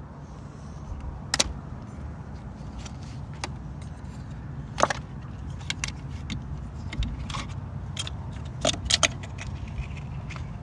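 Steady low drone of a car, with scattered sharp clicks and light rattles at uneven times, the loudest about a second and a half in, near five seconds and near nine seconds.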